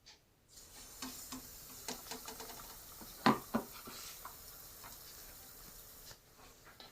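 Batter-coated green chillies sizzling in hot oil in a kadai as they fry into bajji, with small crackles and a sharp clink a little past halfway. The sizzle starts about half a second in and cuts off suddenly near the end.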